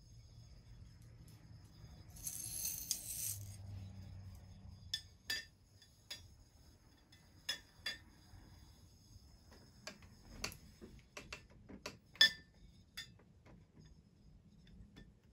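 Glass tubes tapping and clinking against the glass envelope of a plasma spindle lamp: scattered sharp clicks and clinks, the loudest about twelve seconds in, with a brief hiss about two seconds in.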